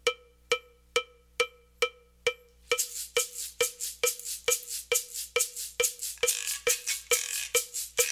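Rock song intro: a cowbell struck on a steady beat about twice a second. About a third of the way in, a hissing cymbal pattern joins it with strokes between the cowbell hits.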